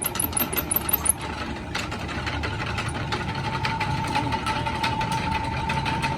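A machine running steadily with a rapid, even ticking, joined about two seconds in by a steady whine.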